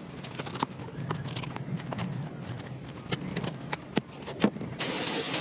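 Fillet knife cutting and scraping through a triggerfish's skin and flesh on a cleaning board: scattered clicks, taps and scrapes. A loud steady hiss starts near the end.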